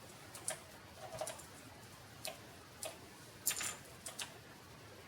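A few light, irregularly spaced clicks and taps, the loudest about three and a half seconds in.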